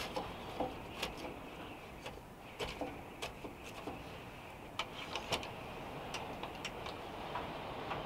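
Small wood-burning stove being loaded by hand: irregular sharp clicks and crackles of wood pieces in the firebox, in loose clusters, over a steady rushing hiss.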